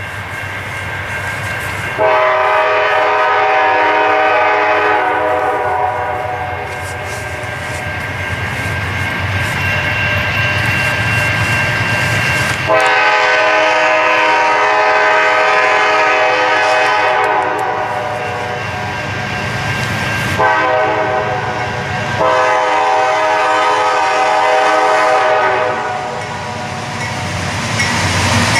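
Horn of a Norfolk Southern GE D9-44CW diesel locomotive sounding the grade-crossing signal of long, long, short, long blasts as the train approaches, with the locomotive's low rumble underneath.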